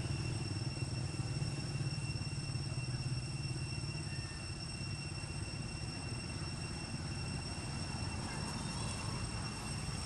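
Steady low rumble of outdoor background noise, with faint steady high-pitched tones held above it.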